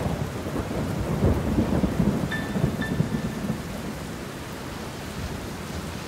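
Thunderstorm sound effect: rumbling thunder over a steady hiss of rain, the rumble loudest in the first half.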